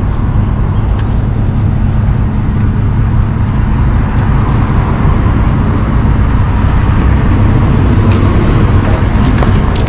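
Steady low engine rumble with road traffic noise.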